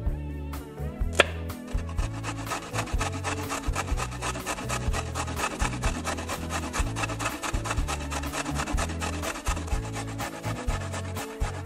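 A carrot being grated on a stainless steel box grater: a long run of quick, even rasping strokes against the metal. About a second in there is a single sharp knife cut through the carrot on a wooden board.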